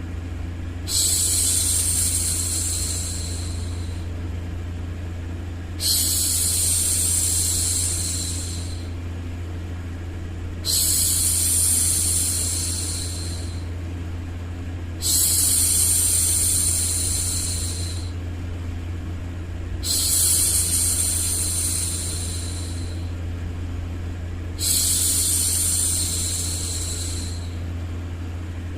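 A woman's long 'shhh' hushing sound, repeated six times about every five seconds with each shush lasting about three seconds, over a steady low white-noise rumble.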